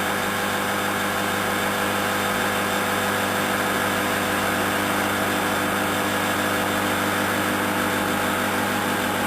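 Microwave oven running: a steady, unchanging hum with fan noise.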